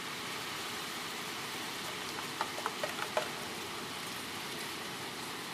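Hurricane wind and rain: a steady rush of wind-driven rain and tree leaves thrashing in the gusts. About halfway through comes a quick run of five sharp ticks.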